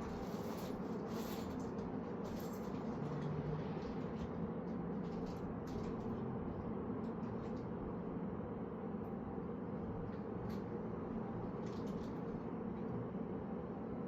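Steady background hum with scattered faint clicks and light taps, the sounds of small screws and bike parts being handled and fitted by hand.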